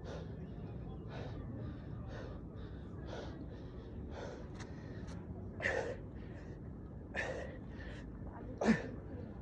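A man breathing hard and fast from the exertion of a long push-up set, a string of short gasping breaths. Three louder breaths come about a second and a half apart in the second half, the last, near the end, the sharpest.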